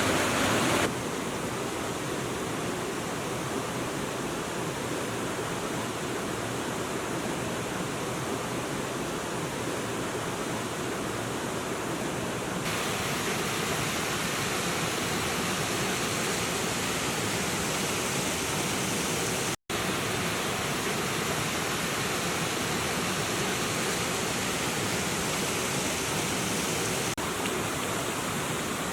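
Steady rushing of flowing water, an even hiss with no distinct events. It changes character abruptly at several edit cuts and drops out for an instant about two-thirds of the way in.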